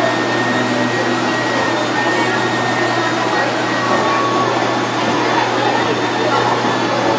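Build-a-Bear stuffing machine running steadily, its blower pushing fiberfill through the nozzle into a plush toy, with a constant low hum under the rushing air.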